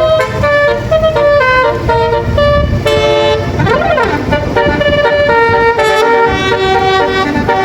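Bus telolet basuri multi-tone musical horn playing a quick tune of changing notes, with a rising-and-falling swoop about halfway through, over the low rumble of road traffic.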